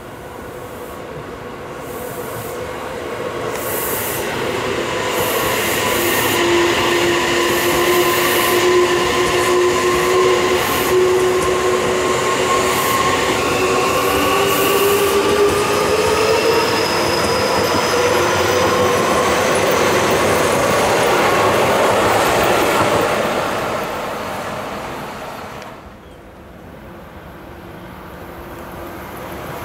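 Seibu 6000-series electric commuter train passing close by: a rumble that builds and holds, wheels clicking over rail joints, and a whine that rises slowly in pitch. The sound fades after about 23 seconds, and near the end a second train, a Seibu 2000 series, is heard approaching.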